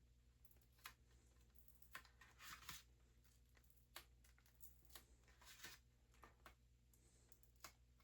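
Near silence with a few faint scratches and soft crinkling, the sound of a sticker being worked and peeled off a hard plastic goalie-mask backplate by hand.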